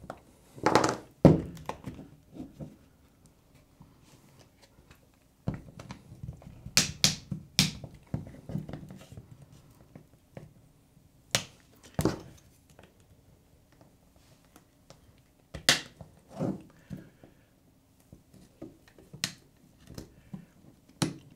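Sharp clicks and snaps at irregular intervals, a few seconds apart, with softer taps between: a thin metal opening tool prying a Samsung Galaxy A20e's plastic frame and cover apart piece by piece.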